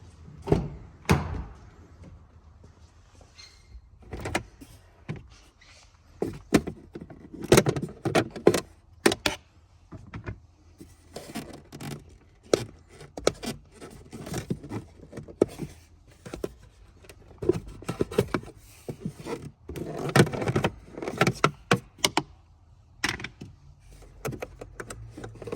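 Hands working plastic interior trim and clips to get at a Toyota 4Runner's cabin air filter: irregular clicks, knocks and rattles, busiest in several short flurries.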